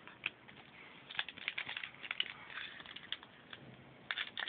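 Trading cards being handled and flipped through by hand, slid against one another: scattered light clicks and rustles, busiest between about one and three seconds in and again near the end.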